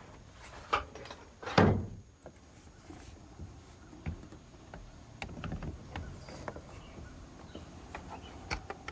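Redwood roof-vent sash being fitted onto its hinges: two knocks against the frame in the first two seconds, the second the loudest, then a scatter of lighter clicks and taps as the hinge leaves are worked together.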